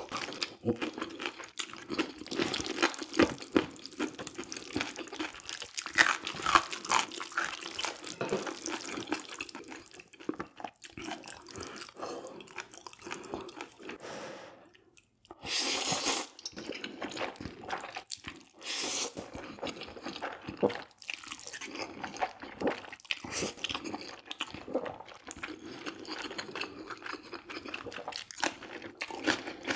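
Close-miked eating sounds: wet chewing and mouth smacking that go on irregularly throughout, with two longer slurps a little past halfway.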